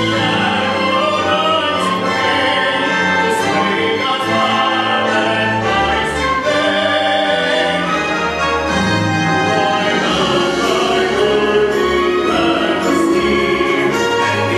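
Mixed church choir of men and women singing a sustained choral piece with instrumental accompaniment.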